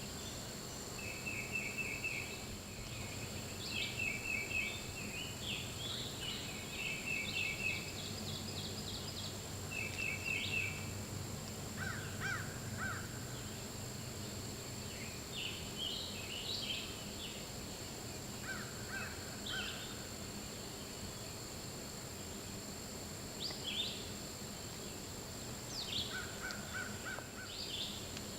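Wild birds calling: short pulsed trills repeated every second or two, with scattered chirps. A steady high-pitched drone, typical of insects, runs underneath.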